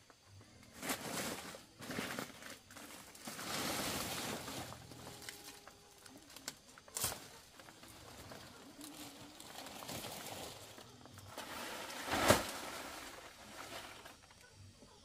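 Large palm fronds rustling and scraping as they are dragged and gathered up, with a few sharp knocks. The loudest is one hard knock about twelve seconds in.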